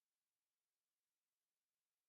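Near silence: a digitally silent gap with only a faint hiss.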